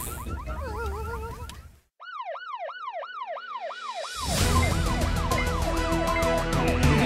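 A cartoon emergency siren sound effect, a fast rising-and-falling wail about three times a second, starting about two seconds in after a moment of silence. Upbeat background music comes in under it about four seconds in.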